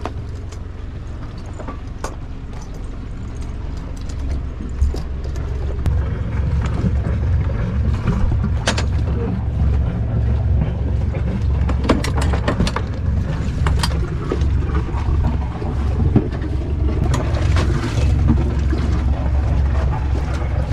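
A sailboat's inboard engine running steadily at low revs, growing a little louder about five seconds in, with scattered clunks and knocks from handling an outboard motor and dinghy gear on deck.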